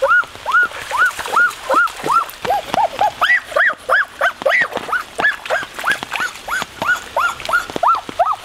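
An animal calling over and over in short, high, arched yelps, about three a second.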